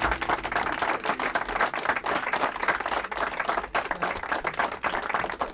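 Audience applause: many hands clapping at once, a dense, steady patter.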